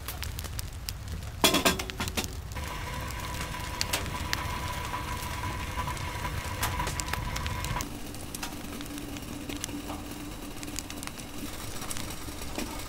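Wood stove fire crackling, with a sharp metal clink about a second and a half in, like a steel kettle being set on the stove's top plate. Steady sizzling and a thin steady tone follow; the tone drops lower about eight seconds in.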